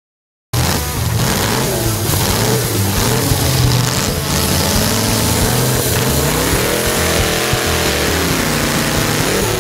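V8-engined hot saw running at high revs as its chain cuts through a large log. It starts abruptly about half a second in, and its pitch wavers up and down under the load of the cut.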